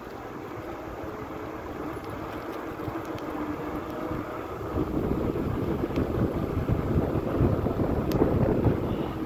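Wind buffeting the microphone of a camera carried on a moving bicycle: a low, uneven rush that grows louder about five seconds in.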